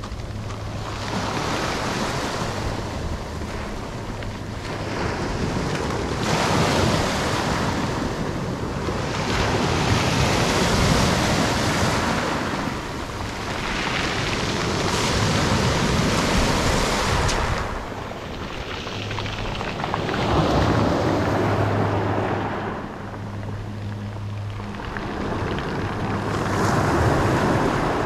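Sea waves breaking on a pebble beach and washing back over the stones. The sound swells and fades in surges every three to five seconds.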